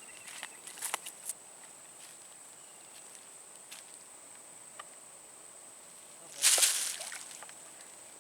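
Outdoor ambience with a steady, high-pitched insect drone, a few small clicks in the first second or so, and one loud, brief rush of hissing noise about six and a half seconds in.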